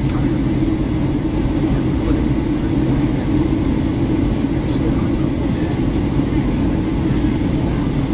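Steady cabin roar of a Boeing 757-200 in flight, heard from inside the cabin at a window seat: a deep, even rush of engine and airflow noise with no change.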